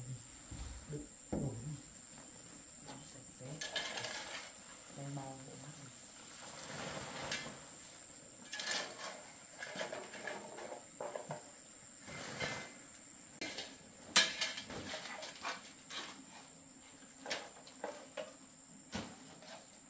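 Irregular knocks, scrapes and clatter of household things being handled and moved while a house is cleared out, with a sharper knock about two-thirds of the way through. A steady high-pitched insect drone runs underneath.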